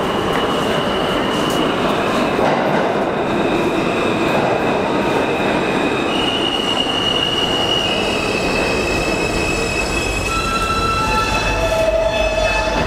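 Subway trains moving through an underground station: a steady rumble of wheels on track, with high steady wheel squeal. In the second half several squeal tones sound at once.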